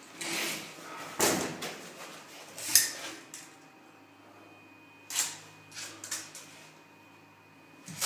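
Tools being handled against the bath valve's chrome wall fittings: an adjustable wrench and a tape measure clinking and knocking in about half a dozen separate short knocks and rattles.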